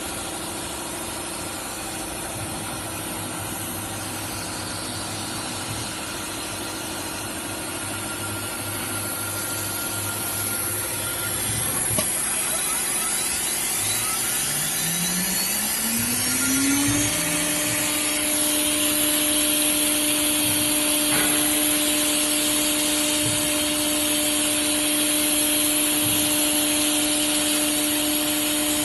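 Small CNC router's spindle running over a steady hiss; about twelve seconds in, the spindle's whine rises in pitch over some five seconds as it speeds up, then holds steady at the higher speed.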